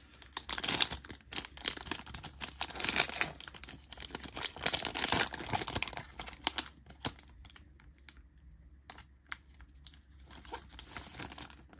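Foil wrapper of a Panini Mosaic trading card pack being torn open and crinkled by hand. The dense crackling lasts about six seconds, then thins to scattered crinkles as the wrapper is peeled back.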